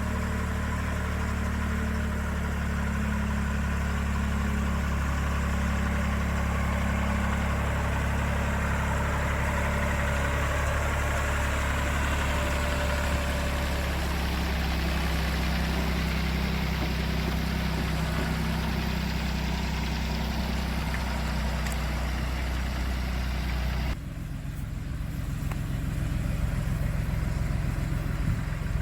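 Diesel farm-machine engine idling steadily. About three-quarters of the way through the sound changes abruptly, then grows louder again.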